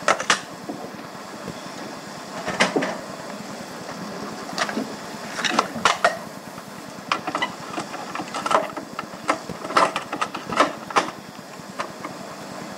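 Steady background hum broken by irregular sharp clicks and knocks.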